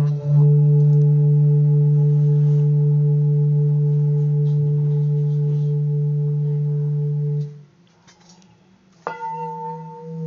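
Hand-made seven-metal Himalayan singing bowl struck and left to ring with a deep low tone and several higher overtones, held steady for about seven seconds before it cuts off suddenly. After a short silence, another bowl is struck about nine seconds in and rings with a slow wobbling beat.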